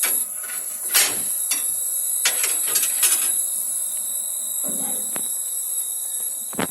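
Laser cutting and engraving machine at work: a steady high-pitched whine under a string of irregular clicks and knocks.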